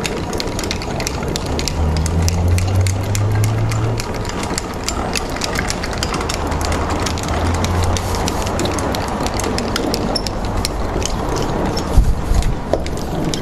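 Hand-cranked trailer winch being wound, its ratchet giving off a rapid run of sharp clicks as the cable hauls the camper's folded tent top over, with a low hum underneath. A single loud knock about twelve seconds in.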